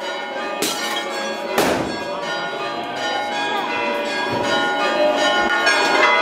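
Church bells ringing continuously, with two sharp bangs within the first two seconds.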